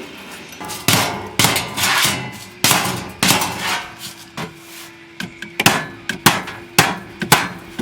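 Hammer blows on a thin sheet-steel patch cut from an old washer or dryer panel, a string of irregular strikes with a short metallic ring after some of them, as the patch is bent to fit the contour of a rusted vehicle floor.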